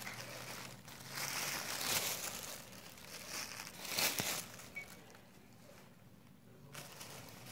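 White tissue paper crinkling and rustling in bursts as a cat moves about in it, loudest about two and four seconds in, then dying down to faint rustles.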